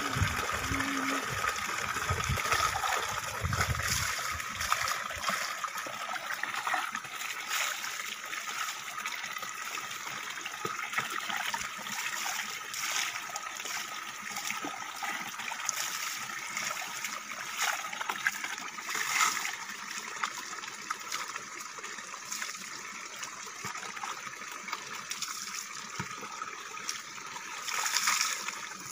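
Water running steadily from a pipe spout and splashing into a plastic bucket, with a louder splash once in the middle and again near the end as water is poured from a dipper over a person bathing.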